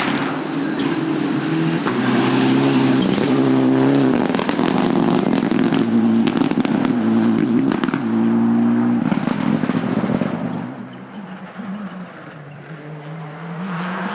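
Rally car passing under full throttle, its engine climbing and stepping through upshifts, with a burst of crackling pops and bangs about halfway through. It fades after about ten seconds, and an engine is heard rising again near the end.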